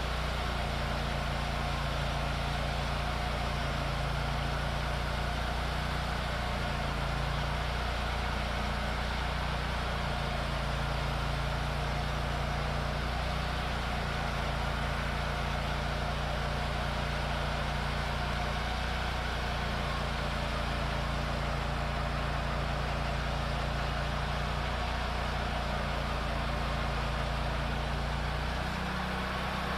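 Wood-Mizer LT40 band sawmill running steadily, its engine under load as the band blade saws through hard shagbark hickory. The blade is dulled and cutting wavy. The engine note changes near the end.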